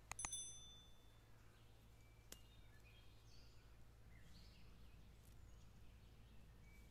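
Near-silent meadow ambience with a few faint, scattered bird chirps. Right at the start, two quick clicks and a short bright chime: the sound effect of a subscribe-button animation.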